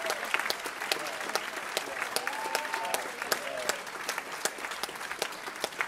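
Live concert audience applauding at the end of a song: dense, steady clapping, with a few voices calling out from the crowd.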